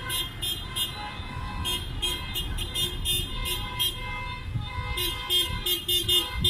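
Car horns honking in rapid short beeps, several a second, over the rumble of slow street traffic.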